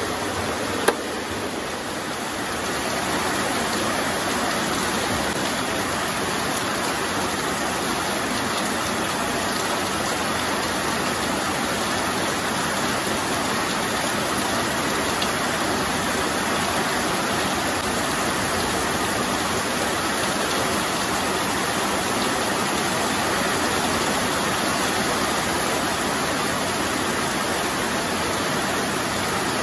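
Heavy rain falling steadily, an even rushing hiss. A single sharp click sounds about a second in.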